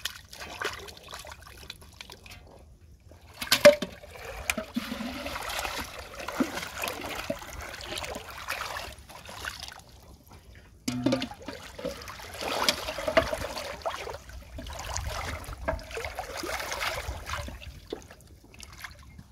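Shallow pond water splashing and trickling as a plastic bottle trap and hands move through it, in two long stretches, with a sharp knock about four seconds in.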